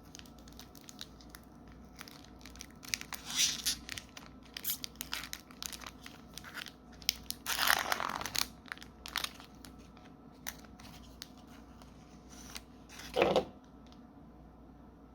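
Foil wrapper of a Magic: The Gathering collector booster pack being torn open and crinkled, in irregular bursts with small clicks, loudest about halfway through and with a last short crumple near the end.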